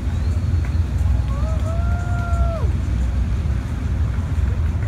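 Steady low outdoor rumble with a rushing hiss. About a second and a half in, a single high pitched tone rises, holds for about a second, then slides down and stops.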